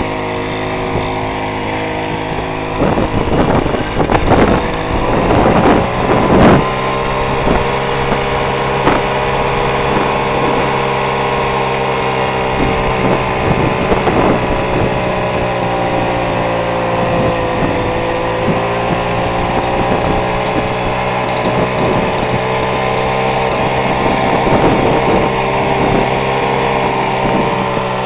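Piaggio Ciao moped's small two-stroke single-cylinder engine running steadily under load as it pulls up a steep hill, its note rising a little a few seconds in and then holding nearly level. A few short thumps on the microphone a few seconds in.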